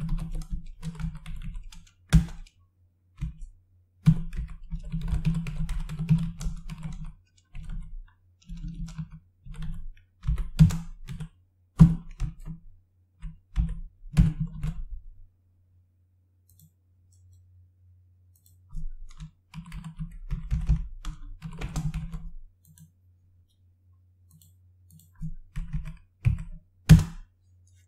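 Typing on a computer keyboard: short bursts of key clicks with pauses between them, and one sharper single keystroke near the end.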